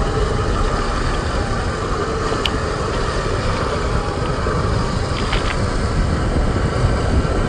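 Scale RC crawler with a brushed 540 electric motor driving off-road: a steady, noisy running sound of motor, gears and tyres, with a few small clicks.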